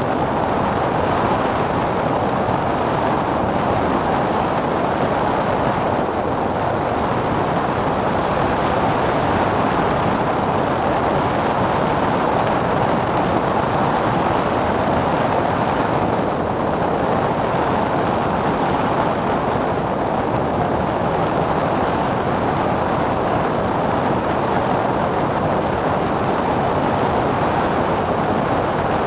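Steady in-flight noise of a Cessna 177 single-engine light aircraft: engine, propeller and airflow blended into one even, unbroken rush.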